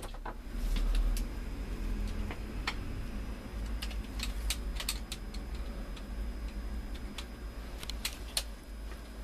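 Scattered small clicks and taps of plastic and metal printer parts being handled while a trapped scrap of paper is worked out of the fuser area, with a cluster of clicks about four to five seconds in and another near the end.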